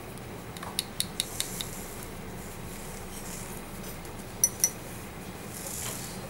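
Light clicks and clinks of small hand instruments against a tray and ceramic palette. A quick run of ticks comes about a second in, then two ringing clinks a little after four seconds. A steady low hum runs underneath.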